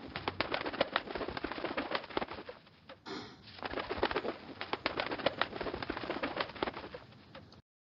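Sound effect of a locust swarm: a dense, rapid clicking and rustling of insect wings. It dips briefly about three seconds in and cuts off near the end.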